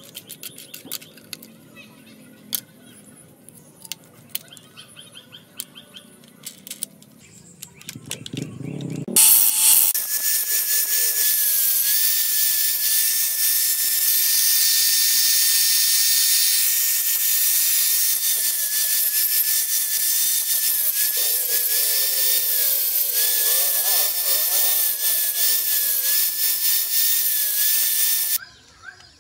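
Small clicks and handling noises as a cutting disc is fitted to an electric angle grinder. About nine seconds in, the grinder starts and runs with a steady high whine and a loud hiss while its disc cuts a steel motorcycle sprocket; the whine dips slightly under load. It stops just before the end.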